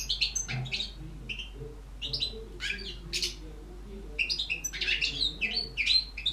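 European goldfinch singing: phrases of rapid, high twittering notes, thinner for a moment about a second in and densest in the second half.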